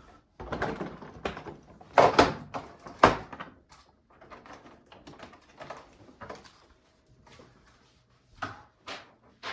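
Hard plastic animatronic frame parts being handled and fitted together: irregular clicks and knocks, the loudest about two and three seconds in, then lighter rattles and ticks.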